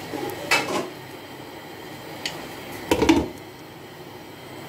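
Glass pan lid with a metal rim clinking against a frying pan as it is put on to cover the pan: a short clink about half a second in, then a louder clattering knock around three seconds in as the lid settles.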